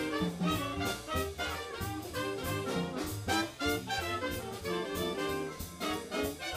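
Big band jazz orchestra playing live: trumpets, trombones and saxophones in full ensemble over stepping bass notes and a steady beat.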